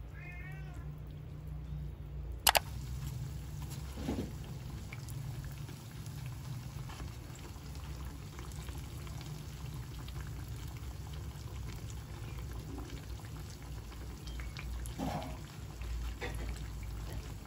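Hot oil sizzling steadily as spring rolls deep-fry in a small pan. One sharp click comes about two and a half seconds in.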